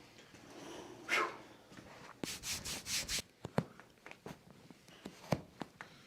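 Hands rubbing and brushing over a chiropractic patient's body and clothing. There is one swish about a second in, then a quick run of about five brushing strokes, then several sharp clicks spaced through the second half.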